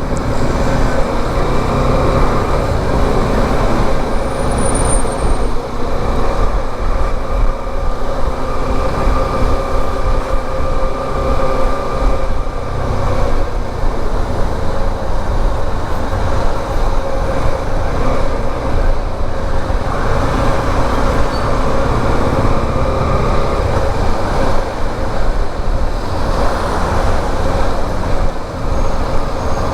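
Motorcycle on the move: steady engine drone and wind rumble, picked up by the rider's helmet-mounted microphone.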